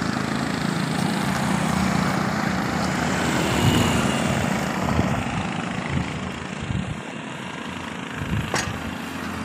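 Small 5 HP single-cylinder engine of a walk-behind mini tractor (power weeder) running steadily as the machine is driven and turned on the spot. The engine sound eases and gets quieter about seven seconds in.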